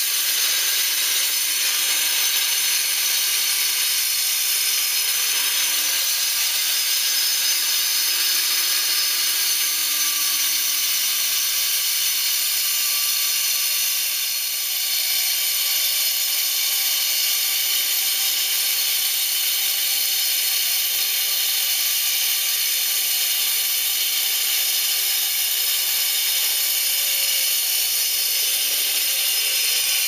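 Angle grinder with a diamond blade cutting into a concrete block through a dust-extraction cutting cowl: a steady, high grinding hiss of the blade in the concrete over the running motor, with a brief dip about halfway through.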